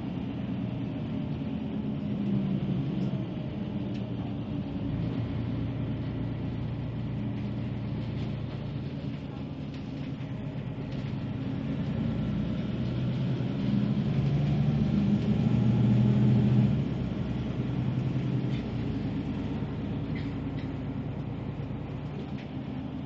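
Bus engine hum and road noise while the bus is driving. The engine note builds for several seconds past the middle, then drops away abruptly about two-thirds of the way through.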